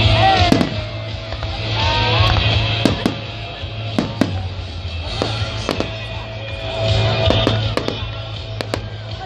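Fireworks display: aerial shells bursting in a string of sharp, irregular bangs, about a dozen of them, with music playing underneath throughout.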